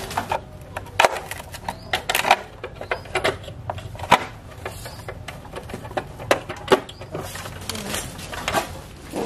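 Hand tools working on a motorcycle's metal parts during disassembly: a run of irregular sharp clicks, taps and clanks.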